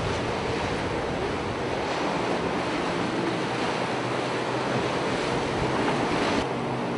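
Steady wind buffeting the microphone over the rush of sea water, with a faint low steady hum underneath.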